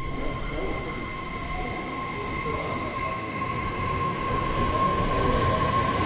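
Kobe Municipal Subway 6000-series train pulling slowly away from the platform: a steady electric whine from its drive over the low rumble of the cars, growing louder as it gathers speed.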